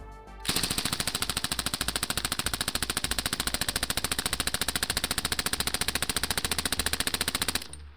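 Belt-fed 5.56 SAW light machine gun, suppressed with a SilencerCo Velos LPB, firing one long unbroken burst of fast, evenly spaced shots. It starts about half a second in and stops shortly before the end, about seven seconds of continuous fire.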